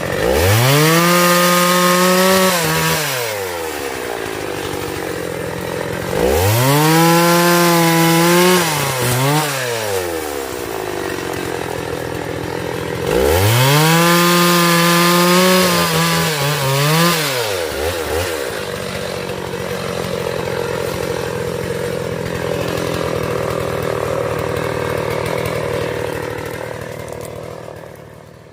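Two-stroke chainsaw revved to full throttle three times, each time held for two or three seconds before dropping back, then running at low speed and fading out near the end.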